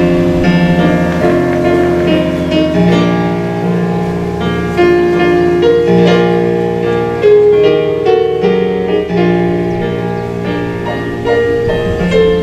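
Instrumental music played on a keyboard instrument: chords under a melody of held notes, with no singing.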